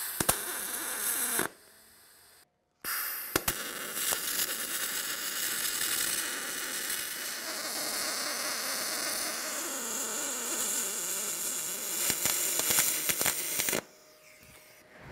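MIG welding arc on aluminum: a short burst of crackling hiss lasting about a second and a half, then, after a pause, a longer steady crackling bead of about eleven seconds that stops suddenly near the end.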